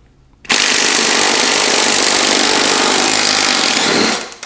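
Impact gun running in one steady burst of about three and a half seconds, starting about half a second in and cutting off suddenly, as it loosens a mounting bolt on a John Deere D170 mower-deck spindle.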